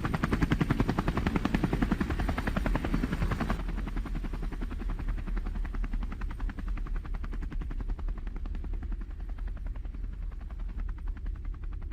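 A fast, even mechanical chopping rhythm that slowly grows quieter, losing its upper edge a few seconds in.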